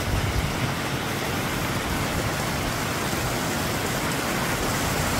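Steady rush of a mountain stream cascading over rocks, an even hiss without breaks.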